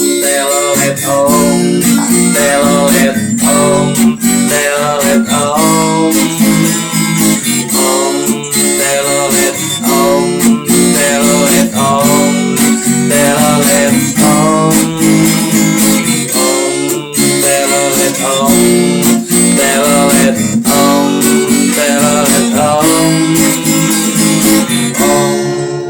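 Music: strummed acoustic guitar chords with a melody line over them, kept up at a steady beat.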